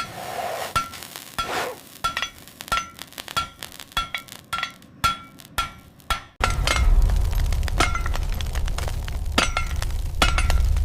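Light metal clinks and taps, about three a second, each leaving a short ringing note. About six seconds in, the sound cuts suddenly to a loud, steady low rumble of heavy machinery with a few clinks over it.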